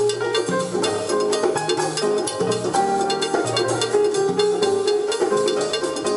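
Music playing through a pair of Dynaco A25 loudspeakers, driven by a McIntosh MC-2105 power amplifier and a Luxkit A-3300 tube preamplifier.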